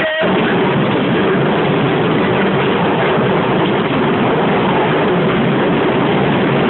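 A Waltzer fairground ride running: a loud, steady rumbling noise with no clear music, broken by a brief dropout right at the start.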